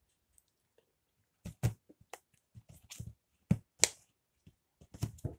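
Silicone push-pop fidget toys (pop-its and a dimple keychain) being pressed by hand, giving a run of about eight sharp, irregular pops that start about a second and a half in.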